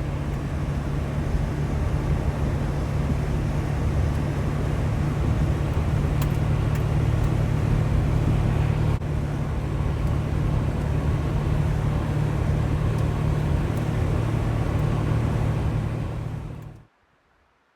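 Car driving, with steady engine and road noise over a constant low hum. It cuts off abruptly near the end.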